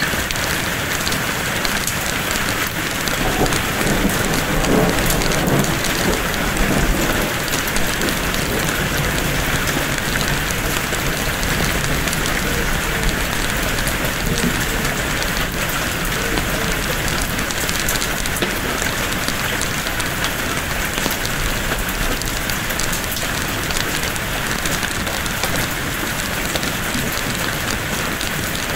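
Steady heavy rain, with a low rumble of thunder swelling and fading from about three to seven seconds in.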